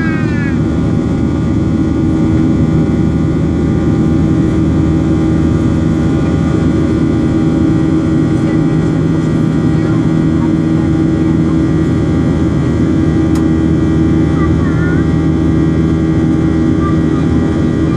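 Steady engine and airflow noise heard inside the cabin of a Boeing 737 climbing after takeoff, its CFM56 turbofans at climb power, with a constant hum of steady tones underneath.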